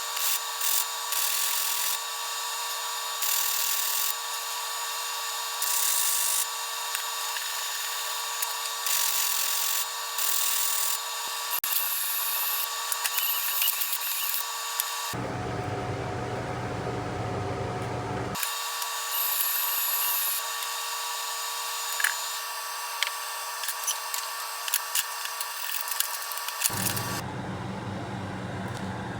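Angle grinder with a zip cut-off disc running at a steady high whine, with repeated bursts of hiss as the disc cuts into steel. The whine gives way twice to a different, lower noise, about fifteen seconds in and near the end.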